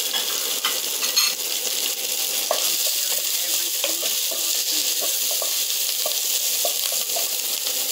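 Sliced peppers and onions sizzling in hot oil in a pot while a spatula stirs them. A steady sizzle runs under repeated short scrapes of the spatula against the pot.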